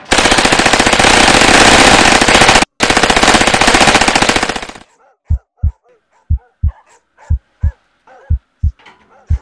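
Rapid automatic gunfire, very loud, in a long sustained volley with a brief break a little under three seconds in, dying away about five seconds in. A slow heartbeat follows: pairs of low thumps about once a second.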